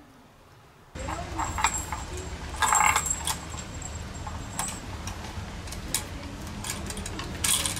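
Kittens playing on a sisal scratching post, its dangling bead chain and hanging toys jingling and clinking with scattered knocks and rustles, starting about a second in over a steady low background rumble.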